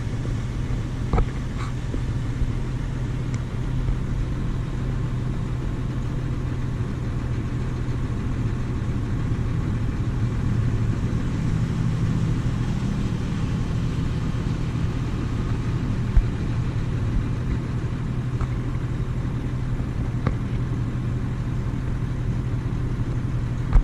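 Heavy diesel farm machinery running steadily, a constant low engine hum.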